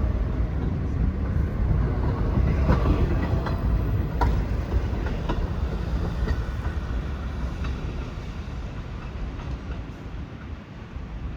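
New York City subway train running on the elevated track, a loud rumble with wheels clicking over rail joints, fading toward the end.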